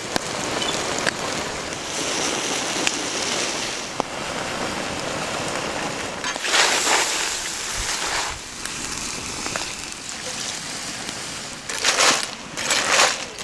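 Pot of crayfish boiling: a steady watery bubbling and hissing, with louder splashing and scraping twice near the end as a ladle stirs through the crayfish.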